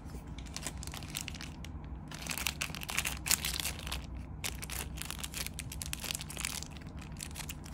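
Handling noise: a dense run of crinkling and rustling with small clicks, as lighters and their wrapping are handled.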